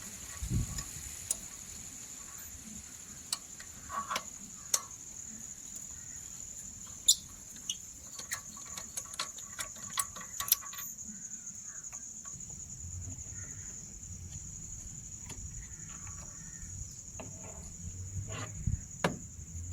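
Steady high-pitched chirring of insects, with scattered sharp clicks and light metallic taps from hand tools, most of them in the first half, as an engine cover is taken off.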